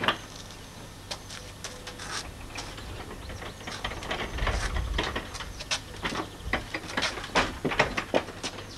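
Irregular knocks, clicks and rattles of wood and metal as the small wooden body of a miniature-railway guard's van is handled and shifted about in a shed doorway, with a low rumble around the middle.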